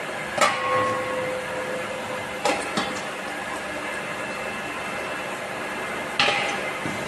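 Metal clanks as a hand trolley is hooked under a red extinguisher cylinder and tipped back. The first knock, about half a second in, rings on briefly; further knocks come about two and a half and three seconds in, and again near the end. A steady machine hum runs underneath.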